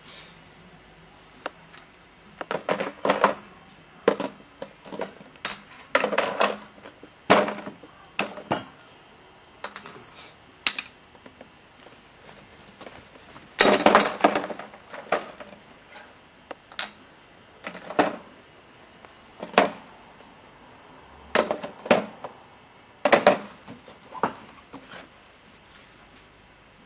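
Empty bottles and cans being gathered and dropped into a plastic crate: some twenty separate clinks and clatters at irregular intervals, the loudest about halfway through.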